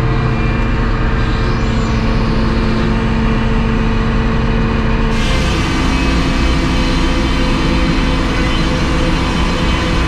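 A large circular sawmill headsaw runs with a steady machine hum. About five seconds in, the blade enters the log and the harsh sound of sawing wood comes in suddenly and carries on.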